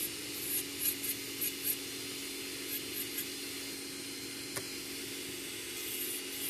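Electric nail drill (e-file) running steadily with a steady hum, its red-band bit grinding briefly against the nail several times in the first two seconds as it trims around the cuticle. One sharp click about four and a half seconds in.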